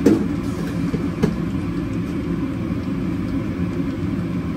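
Steady low mechanical hum of a food truck's running machinery, with two light clicks about a second apart near the start.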